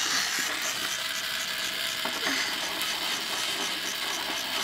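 Battery-powered toy drill whirring steadily as it drives a plastic bolt into a toy workbench.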